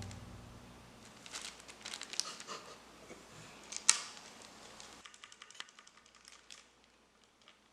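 Faint rustling and light clicking of a cat pawing at cardboard and paper, with one sharper tick about four seconds in and a quick run of small clicks a second later.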